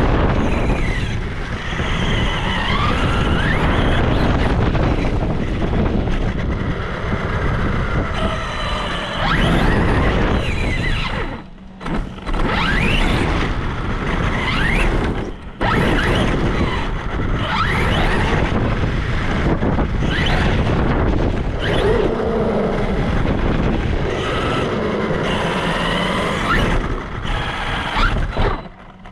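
Brushless electric motor and drivetrain of a Traxxas Sledge RC monster truck whining up and down in pitch as it speeds up and slows, with rumble from the tyres and chassis. The sound drops briefly twice near the middle, when the throttle comes off.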